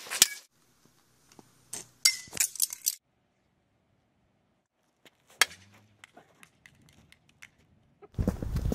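Sharp cracking impacts of a baseball bat hitting small hard plastic objects: one just after the start, a quick cluster of cracks and clatter about two to three seconds in, and another crack about five and a half seconds in followed by small ticks of scattering pieces. Near the end there is a loud, low rumbling noise.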